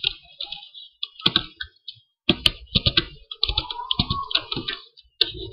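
Typing on a computer keyboard: irregular keystroke clicks in short runs.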